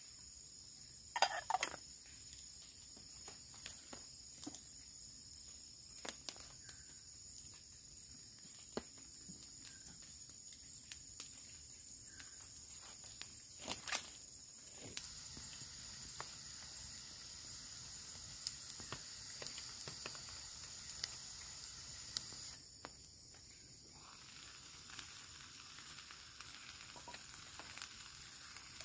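Wood campfire crackling and popping under a metal cook pot, with a steady high drone of insects. About a second in, the pot's metal lid clinks a few times, and from about the middle a steady hiss rises over the fire for several seconds, then drops off suddenly.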